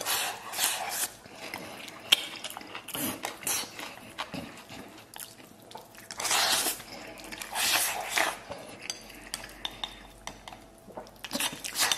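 Chopsticks scraping and clicking against a ceramic rice bowl as rice is shoveled into the mouth, in short bursts every few seconds.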